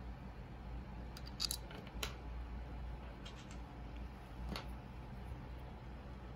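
Small plastic clicks and taps from white plastic phone security display holders and their coiled cables being handled on a tabletop: a quick cluster of sharp clicks between one and two seconds in, and one more click a little after halfway, over a steady low hum.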